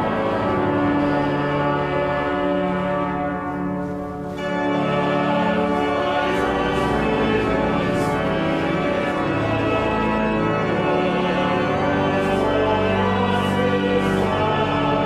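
Pipe organ playing hymn music in held chords, dipping briefly about four seconds in before the chords resume.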